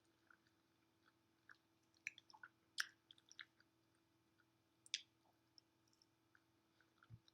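Faint, close-up chewing of creamy mac and cheese: scattered soft wet mouth clicks and smacks, the loudest a little before 3 seconds in and again about 5 seconds in.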